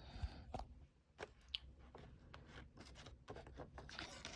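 Faint scattered crackles and clicks of packaging being handled as a promo card is pried free from a Pokémon card collection box.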